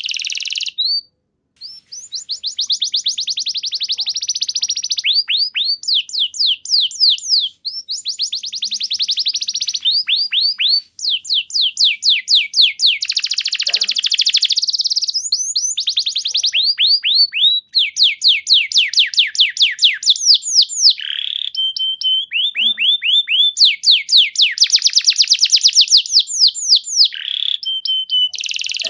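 Domestic canary singing a long, continuous song of rapid trills. Each phrase is a fast run of repeated falling notes, and one phrase follows another with a few short steady whistles between them. There is a brief pause about a second in.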